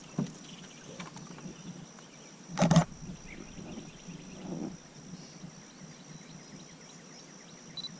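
Quiet outdoor ambience with a faint steady high-pitched tone, broken by one short, loud thump a little under three seconds in.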